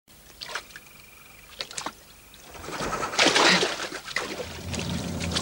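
Water sloshing and splashing as people wade waist-deep through a swamp, growing louder about two and a half seconds in. A few short chirping calls of night creatures sound in the first two seconds.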